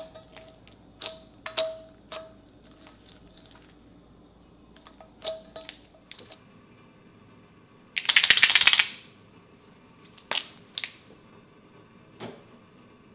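Fingers pressing and poking soft slime, giving off small sticky pops and clicks. Later there is a loud rapid rattle lasting under a second, then a few sharp clicks.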